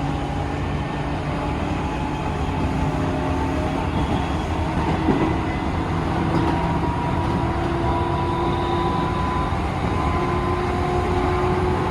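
Tobu 9000 series electric train car MoHa 9204 running on the line, with steady motor and gear tones rising slowly in pitch as it gains speed over the rumble of the wheels. This car gives an unusual noise only in summer.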